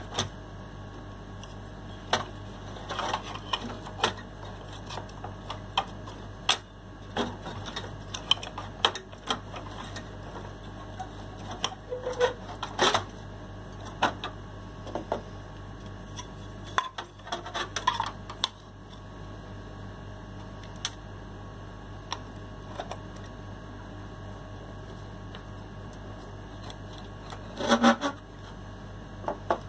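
Plastic covers being snapped back onto small stabilizer relays: irregular small clicks and plastic clatter in a few short clusters, over a steady low hum.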